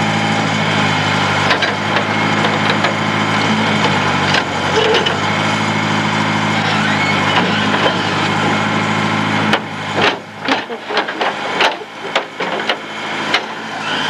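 Backhoe engine running steadily at idle. About nine and a half seconds in, the running noise drops and a series of sharp clicks and knocks follows.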